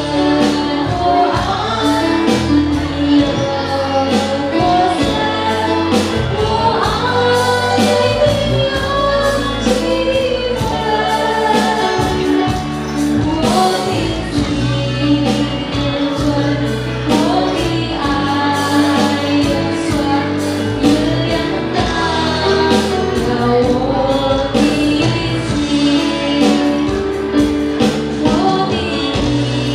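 A man and a woman singing a duet into microphones, backed by a live band with bass guitar and drums.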